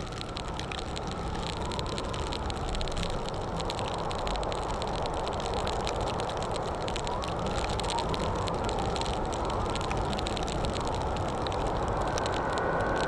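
Motorcycle on the move: steady engine and road noise with wind rushing over the microphone, slowly growing louder.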